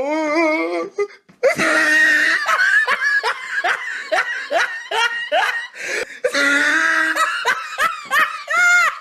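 Hearty laughter: a rapid run of repeated ha-ha bursts, breaking off briefly about a second in and again near six seconds.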